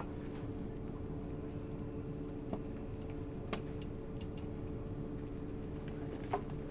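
Cabin sound inside a JR 651 series electric train car: a steady low hum with two even tones over a rumbling background, with a few faint clicks about two and a half and three and a half seconds in and again near the end.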